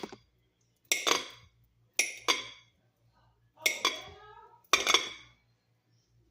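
Knife chopping through a banana and clinking against a plate, five sharp strikes at uneven intervals, each ringing briefly.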